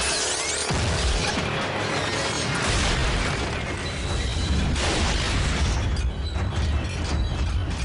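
Dramatic orchestral score mixed with deep rumbling booms and crashing action sound effects, the low rumble building from about a second in.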